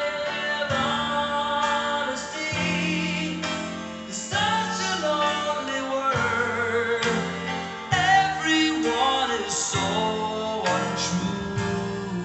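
A song with a singer's voice and guitar, played back through home-built transmission-line speakers driven by an EL84 tube amplifier.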